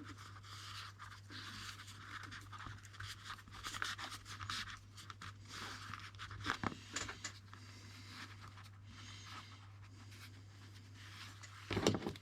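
Nylon paracord being handled and worked on a bracelet: soft scraping and rustling with scattered small clicks, and a louder handling noise near the end, over a low steady hum.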